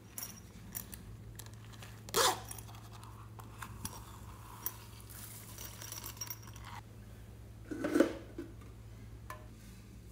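Small containers being handled, opened and tipped over a glass bowl of slime: scattered clicks and knocks, a rustling pour of sequins and beads in the middle, and a louder knock about two seconds in and again near the end.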